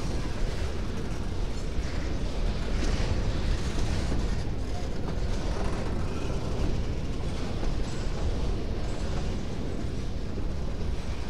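Empty freight train of steel boxcars rolling past, a steady rumble of wheels on rail with occasional knocks.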